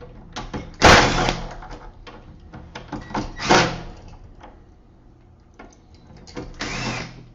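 Small metal clicks and short scraping rattles of deadbolt latch hardware being worked at the edge of a door, while the latch screws are taken out. There are three louder scrapes: about a second in, about three and a half seconds in, and near the end.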